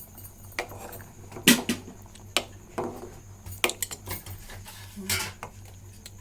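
A stirring utensil knocking and scraping against a cooking pot in a scatter of separate clinks, as rice dumplings are stirred gently in simmering milk.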